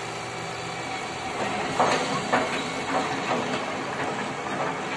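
Tracked excavator's diesel engine running steadily, with a run of irregular metallic clanks and knocks starting about a second and a half in.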